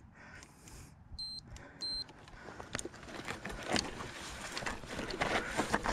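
Two short, high electronic beeps about one and two seconds in. Then irregular crunching and clicking of loose gravel and rock under the tyres and shoes as an Intense electric mountain bike is walked down a steep, loose, rocky trail.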